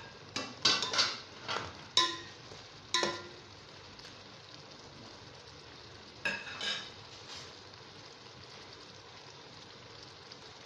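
Sharp metallic clanks of an aluminium cooking pot and its lid, about six in the first three seconds and a short clatter about six seconds in, over the faint steady hiss of the uncovered pot of watermelon rind simmering.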